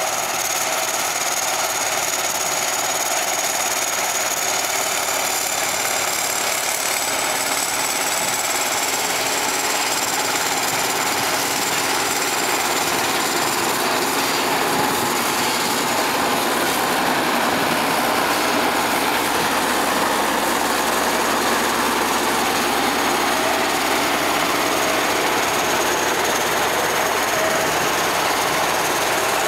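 Diesel engines of a motor grader and a crawler bulldozer running steadily under load as they cut and push soil, with a thin high whine over the engine noise.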